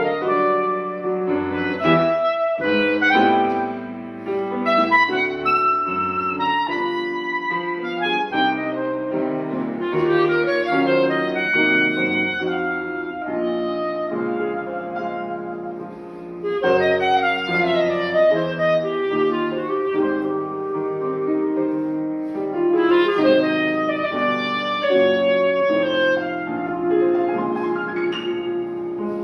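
Instrumental music: a clarinet playing a continuous melody over piano accompaniment, easing briefly about halfway through.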